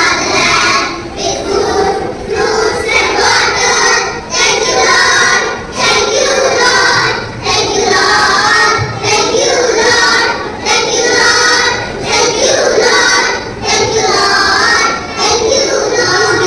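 A group of young children singing a prayer song together in unison, in short phrases with brief breaks about every second and a half.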